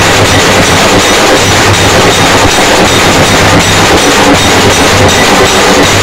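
Bombay Nasik band drums (big stick-beaten Nasik dhols and a bass drum) with manjira cymbals, pounding out a fast, dense rhythm. The playing is very loud and heavily distorted because the smartphone is too close to the drums.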